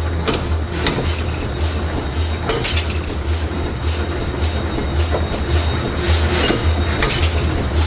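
Forging shop machinery running: a steady rhythmic low thumping with scattered sharp metal clanks and knocks.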